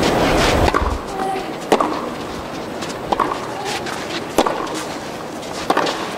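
Tennis rally: the ball is struck by rackets four times, sharp pops about every second and a quarter, over a low steady crowd-and-court background. A louder noisy stretch fades out about a second in.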